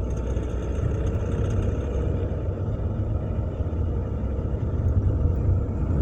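2006 Ford Mondeo Mk3's 125 PS Duratec four-cylinder petrol engine pulling under acceleration in fourth gear: a steady low rumble with faint rattling ticks over it. The owner puts the rattle probably in the engine bay; it shows only under load with a gear engaged, loudest around 2000–2500 rpm.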